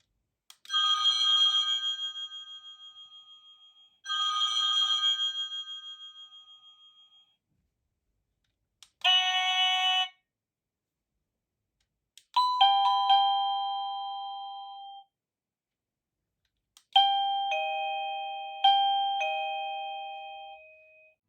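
Avantek wireless doorbell chime playing a series of different electronic chime tunes with pauses between them. It plays a warbling tone twice, then a short ringing burst, then a two-note ding-dong, and near the end a four-note chime.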